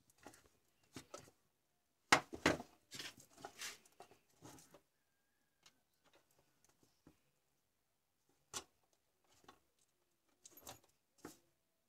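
Handling noise of a plastic cordless-drill battery pack and charger leads being moved on a workbench: a cluster of knocks and rustles about two to five seconds in, then a few single sharp clicks and taps.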